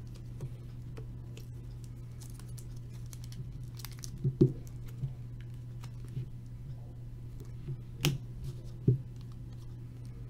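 Trading cards being handled and set down on a table: scattered light taps and clicks, the sharpest about four and a half and eight seconds in, over a steady low hum.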